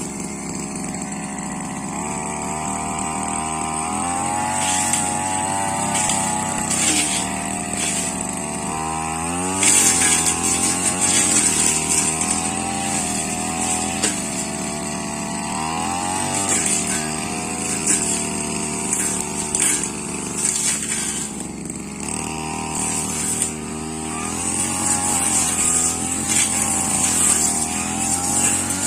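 Two-stroke brush cutter engine running hard, its pitch rising and falling as the throttle is worked, with a sharp rev-up about ten seconds in. The blade's cutting through grass and woody saplings adds short hissing strokes.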